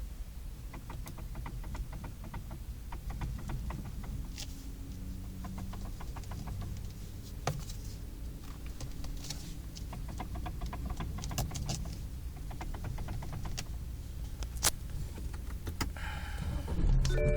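BMW F30 steering knocking as the wheel is turned: clusters of short clicks and knocks over a low engine hum. The owner suspects the steering column's universal joint rather than the steering rack.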